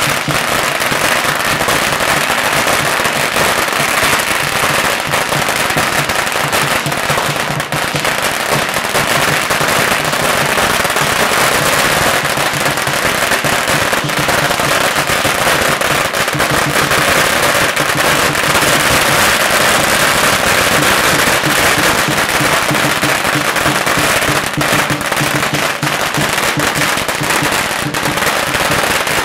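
Long strings of firecrackers going off in a continuous, dense crackle of rapid bangs for the whole half minute.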